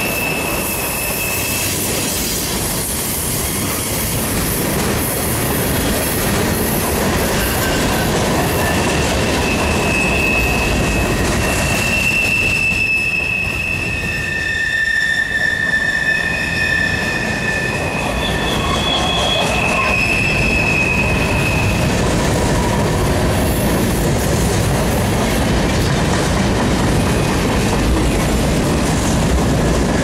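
Freight cars of a manifest train rolling by, a steady rumble and clatter of steel wheels on rail. Over it, high wheel squeals come and go, each held for a second to several, mostly through the middle of the stretch.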